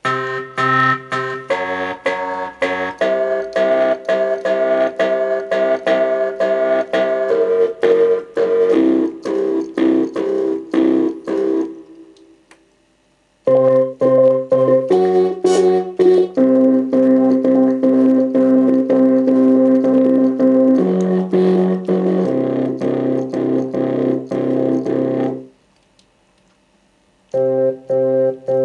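Korg Kronos synthesizer playing a synth bass preset: a bass line under sustained keyboard chords, chopped into fast rhythmic pulses. The phrase breaks off twice, for about a second and a half each time.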